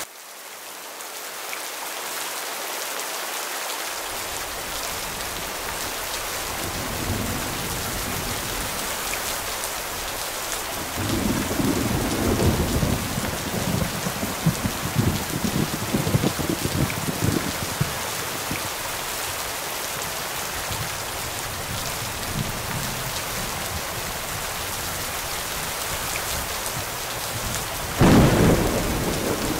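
Steady rain falling, briefly dipping then swelling back up at the start. Thunder rumbles for several seconds about a third of the way in, and a sudden loud thunderclap breaks near the end.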